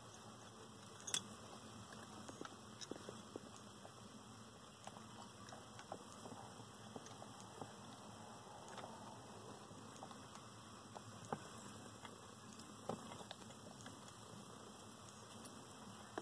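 Faint, scattered clicking and scratching from land hermit crabs moving and feeding on a scallop-shell dish, their legs and shells tapping against the shell and substrate, over a light steady hiss. A few sharper clicks stand out, one about a second in and two more later on.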